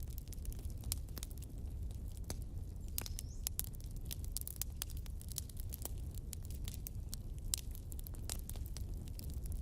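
Wood fire burning in a fireplace: irregular sharp crackles and pops over a low steady rumble of the flames, with a brief thin whistle about three seconds in.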